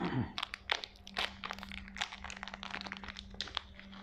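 Irregular crackling and crunching clicks close to the microphone, over a steady low electrical hum.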